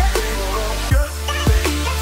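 Electronic background music with a deep bass and a steady beat, about two hits a second, under a sliding synth melody.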